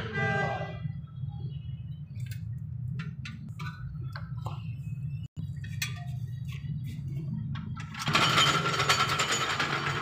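Brake-job workshop sounds: a struck metal part ringing and fading over the first second, then scattered clicks and knocks of tools on metal over a steady low hum. From about eight seconds in a louder, harsh continuous noise takes over.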